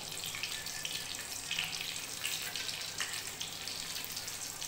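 Cumin seeds sizzling in hot desi ghee in a steel kadhai: a steady hiss with small scattered crackles.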